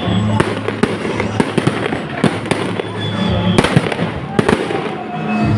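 Fireworks exploding in a rapid, irregular string of bangs and crackles, with music playing underneath.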